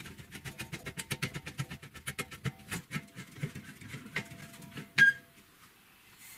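Quick, uneven ticking and clicking, then one sharp metallic clank with a short ring about five seconds in, as a bent steel strip is handled at a steel-frame angle grinder stand.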